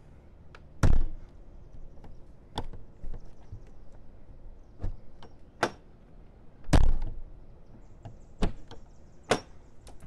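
Travel trailer entry door with a newly fitted allOne keyless lock being shut to test the latch after a strike plate change. It closes with a loud thud about a second in and again near seven seconds, with lighter clicks of the handle and latch between and toward the end.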